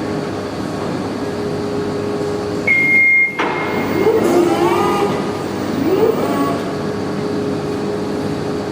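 Steady hum of shop machinery with a constant mid-pitched tone. A single short high beep comes about three seconds in.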